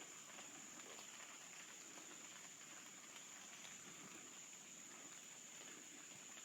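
Near silence: faint outdoor background with a steady high-pitched whine.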